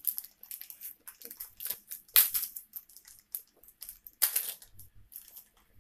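Thin plastic toy wrappers crinkling and tearing as they are worked open by hand: a run of irregular crackles, with two louder ones about two seconds in and just after four seconds.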